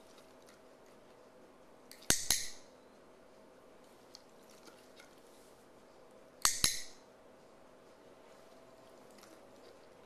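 Dog-training clicker clicked twice, about four seconds apart, each a sharp double click-clack, marking the dog's eye blink.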